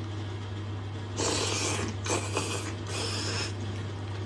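A person slurping noodles off chopsticks: three breathy slurps in quick succession, starting about a second in. A steady low electrical hum runs underneath.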